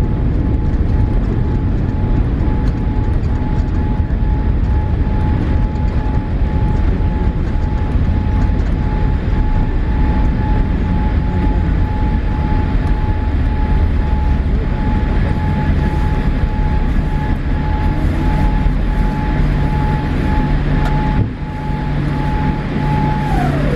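Loud low rumble inside the cabin of a Boeing 787-8 airliner during landing, with a steady thin whine over it. The whine slides down in pitch near the end.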